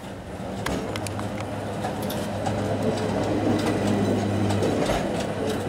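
A vintage electric tram rolls past close by on street rails. A steady low motor hum runs under scattered wheel clicks and rattles, and the sound grows louder over the first few seconds as the tram comes alongside.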